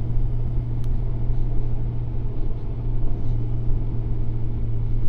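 Motorcycle engine running at a steady cruise, a constant low drone, with wind and road noise, as picked up by a camera mounted on the bike.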